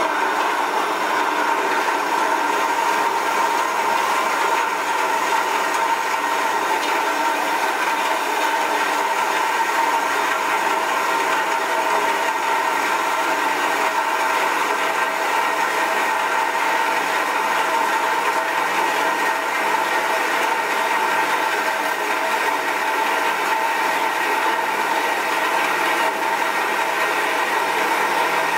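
A 7x12 horizontal metal-cutting bandsaw running steadily through a cut, with a steady whine from the motor and blade drive under the rasp of the blade.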